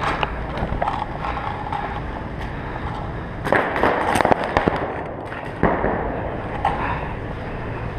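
Pump paintball markers firing: a quick cluster of sharp pops about three and a half seconds in and another single pop near six seconds, over the rustle and footfalls of a player running on artificial turf.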